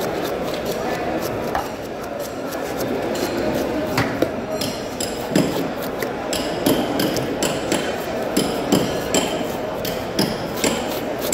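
A long knife chopping through a large yellow trevally onto a wooden block. Sharp thwacks come sparsely at first, then from about four seconds in they quicken to a rapid run of two to three strikes a second.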